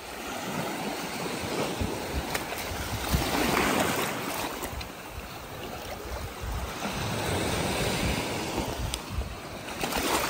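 Small waves washing up on a sandy beach, the wash swelling about three seconds in and again about seven seconds in, with wind rumbling on the microphone.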